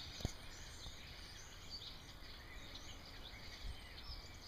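Faint outdoor ambience with a flock of birds chirping and calling in the trees, many short high chirps scattered throughout, and one light click a quarter of a second in.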